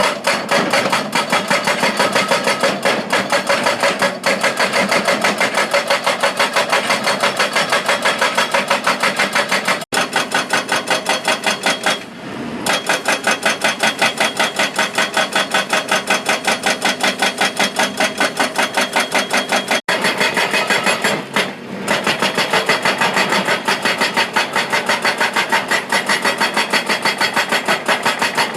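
Excavator-mounted hydraulic breaker (NS140 hydraulic hammer) pounding rapidly and steadily, an even train of quick blows, pausing briefly a couple of times.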